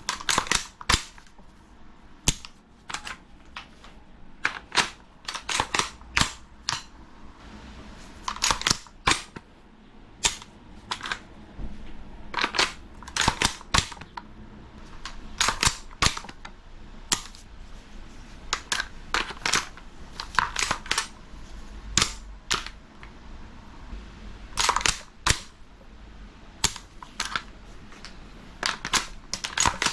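King Arms BlackRain 9mm gas-blowback airsoft carbine firing: sharp shots, some single and some in quick strings of two to four, spread through the whole stretch.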